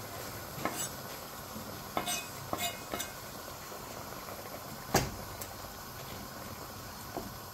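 A wooden spoon stirring chicken pieces and sliced onion in a steel stockpot of simmering broth over a steady sizzle, knocking against the pot several times, loudest about five seconds in.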